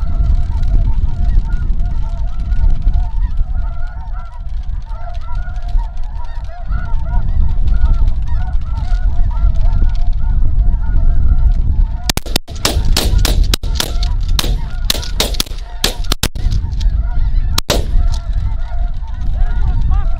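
Snow geese calling continuously, many short high honks overlapping. From about twelve seconds in, a run of sharp cracks follows for several seconds.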